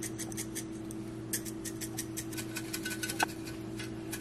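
A quick, irregular run of light clicks and small clinks, several a second, with one brighter clink about three seconds in, over a steady low hum.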